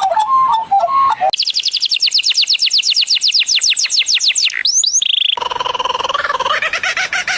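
Bird calls. A fast trill of short falling whistles, about ten a second, runs for about three seconds, then two rising swoops and a short buzz. Near the end a different bird's repeated pulsed calls start.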